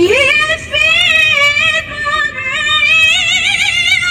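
A woman reciting the Quran in the melodic tilawah style: her voice glides upward at the start, then holds long, high notes with wavering, ornamented runs.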